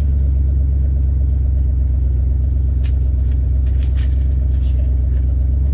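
Steady low drone of a freshly tuned-up 1973 Cadillac Coupe de Ville's V8 under way, heard from inside the car along with road noise, with a couple of faint ticks about three and four seconds in.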